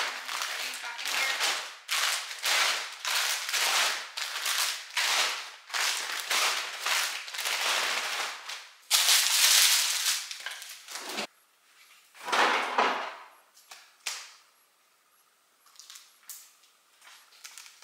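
Shopping bag rustling and crinkling in a quick run of sharp crackles as it is shaken out and folded. The crackling stops abruptly about eleven seconds in, with one more rustle about a second later, then only faint small noises.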